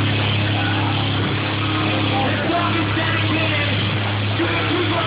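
Live metalcore band playing loud through the venue's PA, a heavy low end held steady, with crowd members yelling over it.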